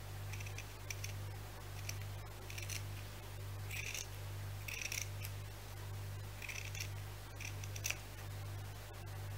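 Scissors snipping through fabric: about eight short cuts, some in pairs, spread irregularly. A steady low hum that swells and fades about once a second lies underneath.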